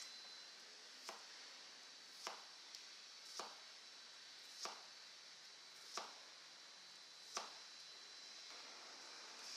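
Knife cutting grilled pork neck on a cutting board: six strokes a little over a second apart, each a short knock, over a faint steady hiss.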